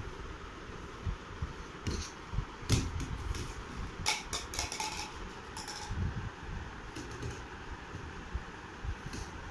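Scattered light clicks and knocks of hard plastic, some sharp and some dull, as a toddler handles plastic play rings and a plastic basket, over a steady background hum.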